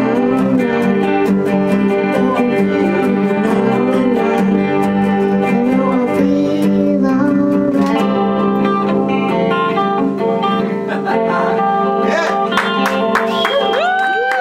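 Acoustic guitar strummed to accompany a young girl singing, the song settling into a held final chord about eight seconds in. Near the end, voices rise over the ringing chord as the song finishes.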